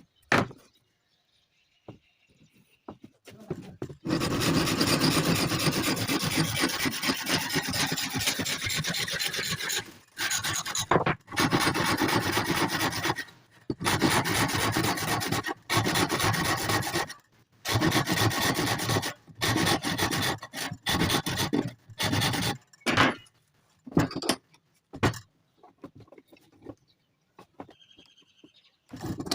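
A hand file rasping across the teeth of a hand saw to sharpen them: a long unbroken run of strokes, then runs of a few seconds with short pauses, then a handful of brief separate strokes near the end.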